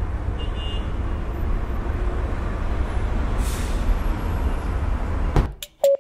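A steady low rumbling noise with a brief hiss about three and a half seconds in. It cuts off suddenly near the end, followed by a few sharp clicks and short beeps.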